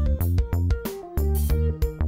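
Background music: keyboard and synthesizer playing held notes over a strong bass line, with a regular beat.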